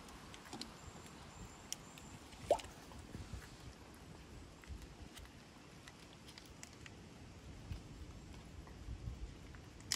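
Faint, scattered crunching of a cat chewing dry kibble, with one short rising chirp about two and a half seconds in.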